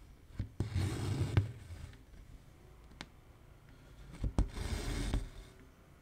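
Cotton embroidery floss drawn through taut 18-count cross-stitch fabric in a wooden hoop: two rasping pulls, each about a second long and about three seconds apart, with light clicks of the needle piercing the cloth.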